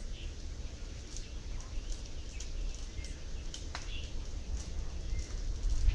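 Wind buffeting the microphone with an uneven low rumble, with a few faint bird chirps and scattered light clicks over it.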